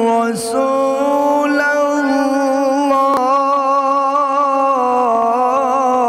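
A male qari reciting the Quran through a microphone in the slow melodic mujawwad style, drawing one word out into a long held note that steps between pitches and wavers in ornaments near the end.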